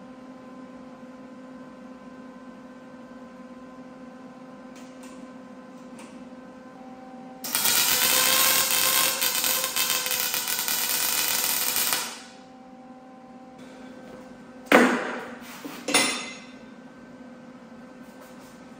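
MIG welder laying a weld bead on a steel motorcycle frame, running steadily for about four and a half seconds in the middle, over a steady shop hum. A few seconds later come two sharp knocks about a second apart.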